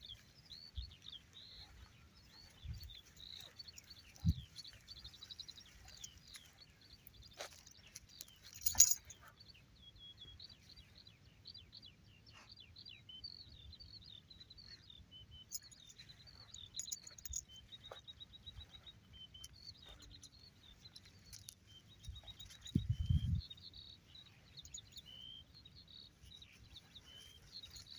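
Wild birds singing, with many quick high chirps and trills over a faint low rumble. There are a few low thuds, a sharp click about nine seconds in (the loudest moment), and a short low rumble about three-quarters of the way through.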